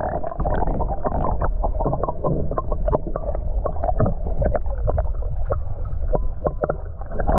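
Muffled underwater sound from a submerged action camera: a steady low water rumble with many small irregular clicks and taps, all the higher sounds cut away by the water.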